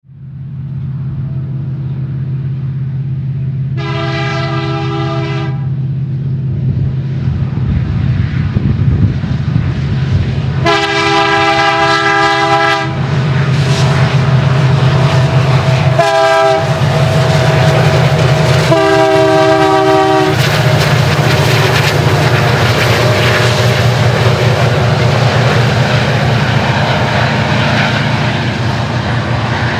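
Diesel freight locomotives passing with their engines droning low while the multi-chime air horn sounds four times, long, long, short, long: the grade-crossing signal. After the horn the rumble and clatter of tank cars rolling by takes over and grows louder.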